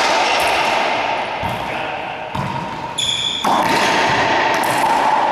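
Racquetball rally: sharp, echoing cracks of the ball struck by racquets and hitting the court walls, roughly every second, with a brief high squeak about three seconds in.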